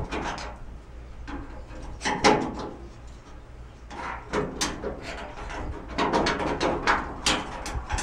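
A long-shafted hand driver working the nut off the back of an old step-van door handle: metal clicking and scraping against the handle hardware and door. There is a sharp clack about two seconds in and a quick run of clicks in the last two seconds.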